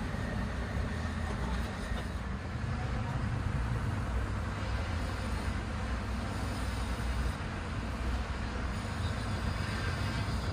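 Steady low rumbling background noise with no distinct knocks or events; the fine brush work makes no sound of its own that can be picked out.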